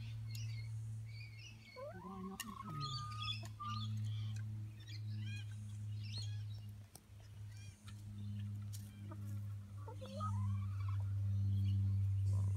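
Backyard chickens calling, with many short high chirps and two longer rising calls, over a steady low hum.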